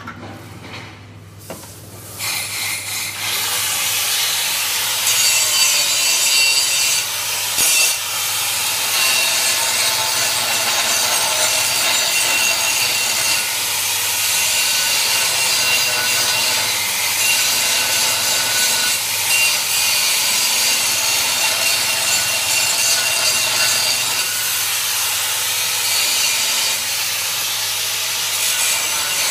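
Handheld angle grinder grinding steel. It starts about two seconds in and keeps up a steady harsh grinding hiss with a thin motor whine over it.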